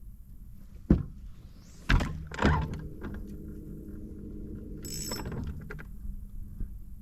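Three sharp knocks about a second apart, followed by a steady low hum lasting a few seconds, with a brief high hiss near the end.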